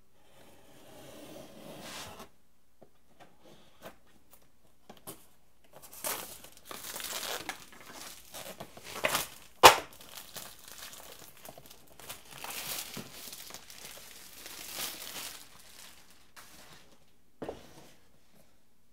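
Plastic shrink-wrap being cut and torn off a MacBook Pro box, crinkling in irregular bursts, with one sharp crack about halfway through and a short snap near the end.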